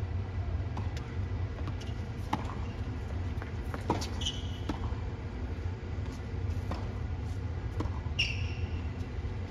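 Tennis rally on a hard court: a string of sharp ball strikes off the rackets and ball bounces on the court, irregularly spaced. A short high squeak of tennis shoes skidding on the court comes about four seconds in and another near the end, over a steady low rumble.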